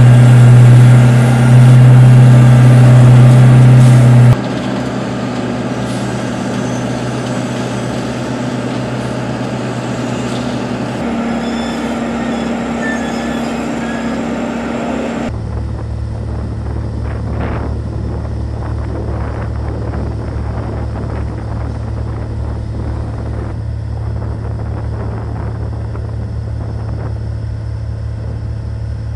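Engines of concrete slipform curb and paving machines running steadily under load. Several clips are cut together, so the hum changes suddenly about 4, 11 and 15 seconds in, and it is loudest in the first few seconds.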